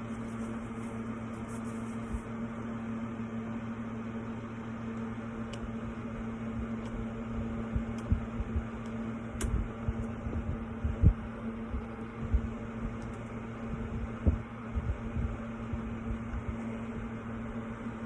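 Steady electrical hum of a fan or appliance running in a small room, with scattered soft low bumps, the loudest about eleven seconds in, and a few faint high clicks.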